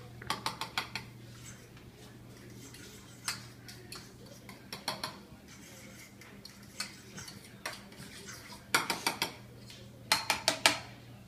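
A metal spoon clinking and scraping against stainless steel dog bowls as food and yogurt are dished out. The clinks come in short irregular runs, the loudest about nine and ten seconds in.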